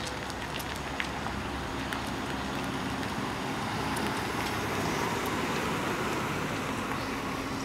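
Mercury Grand Marquis sedan rolling slowly past close by, its engine running under tyre noise. The sound builds to its loudest about five seconds in as the car comes alongside, then eases.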